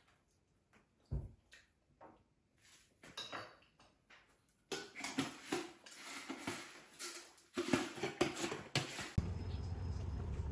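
Kitchen clatter of dishes and cutlery, with a plastic jar being handled and its lid twisted; scattered clicks at first, growing into dense clattering about five seconds in. About nine seconds in, this gives way to the steady low rumble of a bus running.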